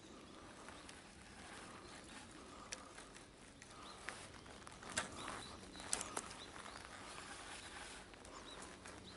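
Faint outdoor ambience with a few light, sharp clicks, the loudest about five and six seconds in.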